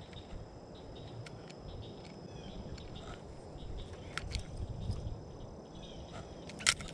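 Steady high-pitched drone of insects, with several thin tones held throughout. Light scattered clicks and taps, likely from handling the rod and line, sit over a low rumble, and there is one sharp click near the end.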